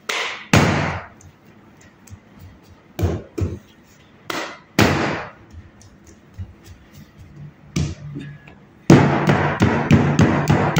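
Hands slapping and patting a disc of bread dough on a wooden table: a handful of separate sharp slaps, then a fast, dense run of knocks in the last two seconds.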